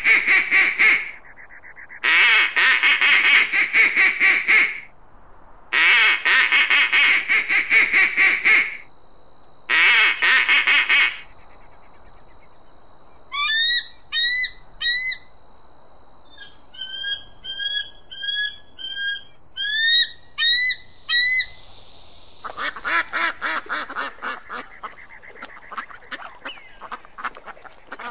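Birds calling in several bouts: loud runs of rapid, harsh calls, then a series of short rising notes, then another harsh run near the end.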